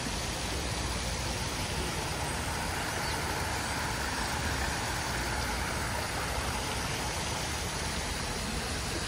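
Road traffic on a city street: a steady rumble of passing vehicles, swelling a little in the middle.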